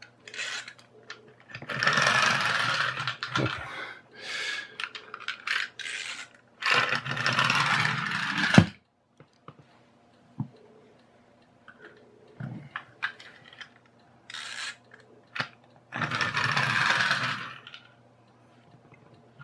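Plastic pull-cord wind-up turtle toy's clockwork mechanism, buzzing in three bursts of about two seconds each as the cord is pulled to wind it and the toy runs across the carpet, with small clicks between.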